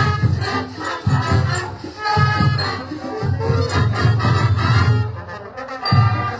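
Band music played live, with a steady, heavy drum beat under melody instruments.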